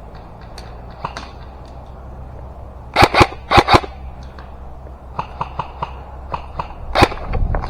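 Airsoft guns firing in single shots. Four loud cracks come in two quick pairs about three seconds in, then a run of quieter, rapid shots, then one more loud shot near the end.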